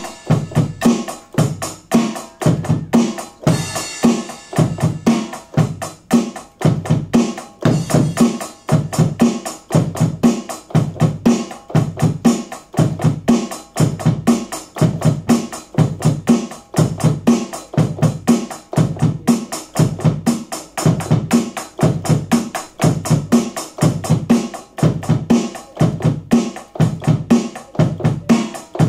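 Roland electronic drum kit played in a steady, even beat, with strong low drum hits throughout and a cymbal crash about four seconds in.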